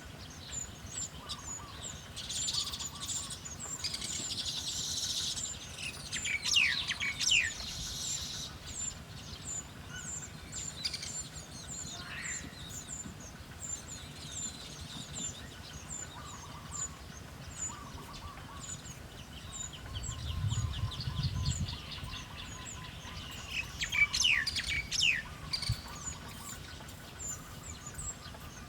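Wild birds calling. A short high chirp repeats about twice a second, with a run of quick falling whistled notes twice. A brief low rumble comes about two-thirds of the way through.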